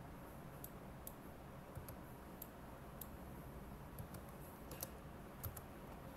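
Faint, sparse computer keyboard keystrokes and mouse clicks, about ten irregular clicks with a small cluster near the end, over a low steady hiss.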